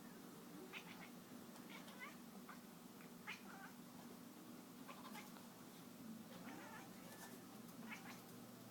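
A domestic cat making a series of short, faint, odd calls, about one every second or so, while it chases a laser pointer dot.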